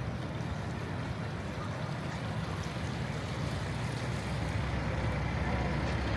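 Outdoor ambience with a steady low rumble that grows slightly louder near the end.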